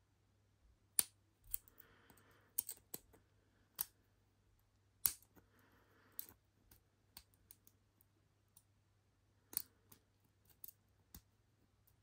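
Irregular small metallic clicks and ticks of a lock pick and tension wrench working inside a laminated padlock's keyway as the pins are picked one by one, the sharpest clicks about a second in, around five seconds in and near ten seconds in.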